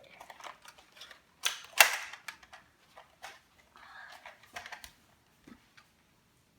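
Plastic clicks and knocks from a spring-powered Nerf blaster being handled, with one loud, sharp snap a little under two seconds in.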